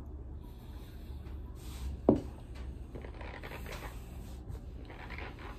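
Chewing a mouthful of dry cornstarch, with the metal spoon scraping back into the cardboard box for more; one sharp click about two seconds in is the loudest sound.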